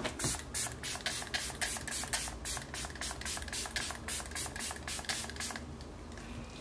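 Pump-action bottle of matte-finish setting spray being pumped rapidly, about five short hisses of mist a second, stopping near the end.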